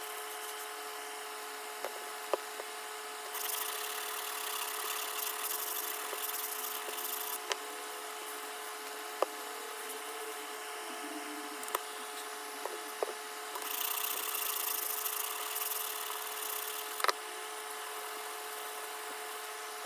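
Wet sanding a pitted steel tool with fine-grit sandpaper: two spells of gritty rubbing, each a few seconds long, with scattered small clicks over a steady background hum.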